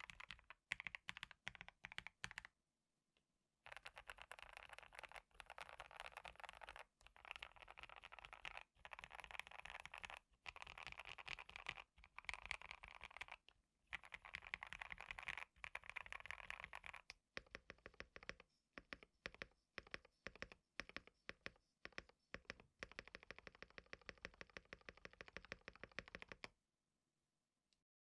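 Typing on a KBD67 Lite mechanical keyboard with Gateron Ink Black V2 linear switches, modded with case foam, car foam, PE foam and a tape mod: fast runs of keystrokes broken by short pauses, stopping shortly before the end.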